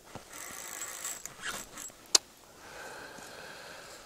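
Spinning reel and tackle being worked, a mechanical rustling and clicking, with one sharp, loud snap about two seconds in.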